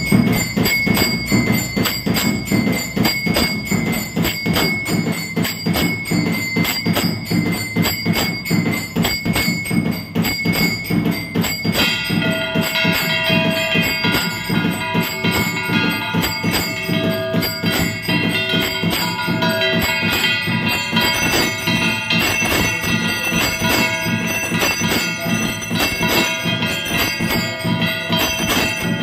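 Temple bells clanging rapidly and without pause for the aarti. About twelve seconds in, more bells join with clear, sustained ringing tones.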